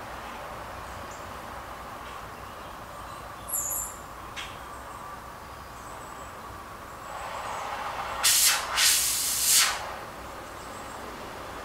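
Propane-oxygen cutting torch flame burning with a steady hiss. About eight seconds in, the hiss surges loudly two or three times as the oxygen is opened up and the flame is adjusted.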